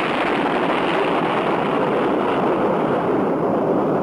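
Boeing 707's jet engines, a steady loud rushing roar.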